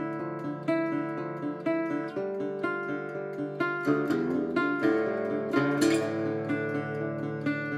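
Solo acoustic guitar music on a Levin guitar from around 1930: fingerpicked notes ring over sustained low bass notes, with a quick run and a bright strummed chord between about four and six seconds in.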